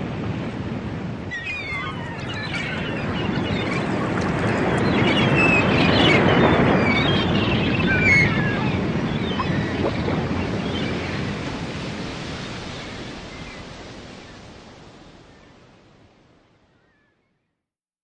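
Ocean surf: a wash of breaking waves that swells to a peak about six seconds in, then fades out to silence.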